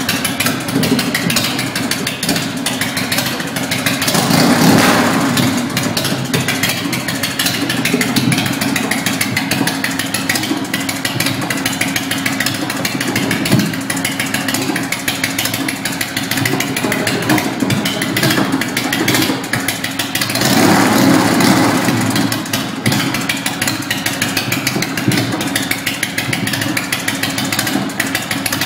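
Custom chopper's V-twin engine idling through short chrome drag pipes, blipped up briefly twice: about four seconds in and again about twenty seconds in. There is one sharp pop about halfway through.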